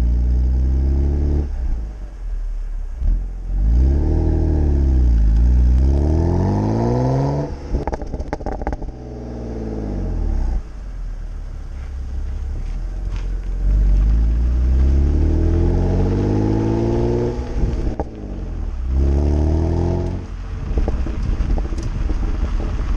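BMW N52B25 2.5-litre straight-six breathing through a BMW Performance rear silencer, climbing hard in revs twice, quickly the first time and slowly the second. Each time the throttle is lifted the revs drop suddenly and the exhaust crackles and pops on the overrun.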